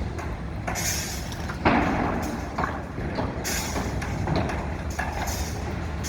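Steady low rumble of downtown street traffic, with passing vehicles rising and falling in irregular noisy surges; the loudest comes about a second and a half in.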